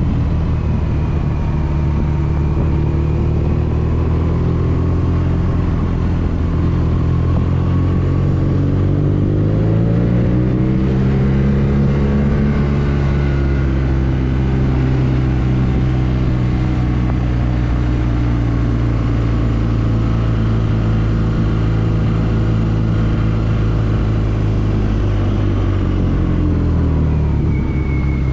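BMW R nineT's air/oil-cooled boxer twin engine running under a riding rider. It picks up revs about a third of the way in, holds a steady pitch, then drops back near the end.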